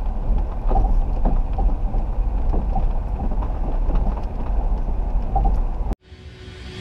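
Land Rover Discovery 3 driving slowly over a rutted grass track: a heavy low rumble with frequent knocks and rattles as it bumps over the ruts. It cuts off suddenly about six seconds in, and music begins to fade in faintly.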